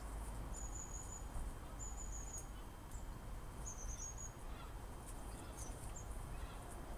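Small bird chirping: three short, very high, thin calls in the first four seconds, over a steady low rumble.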